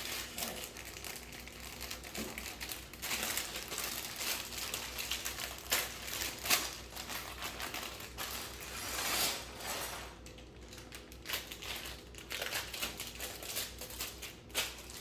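Plastic bags of Lego pieces being handled and shuffled on a table, crinkling, with the loose plastic bricks inside clicking and rattling. The crinkling is dense for about the first ten seconds, then thins to scattered clicks.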